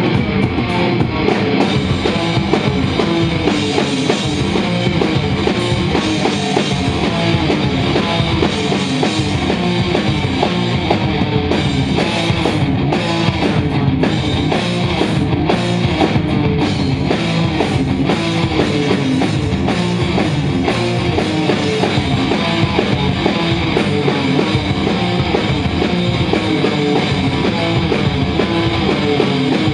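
Loud rock music with electric guitar and drum kit, playing steadily without a break.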